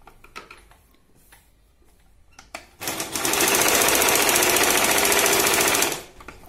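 Usha Stitch Queen electric sewing machine: a few light clicks, then from about three seconds in a steady run of fast stitching for about three seconds that stops shortly before the end. It is sewing with two threads through one needle, laying a thick double-line stitch.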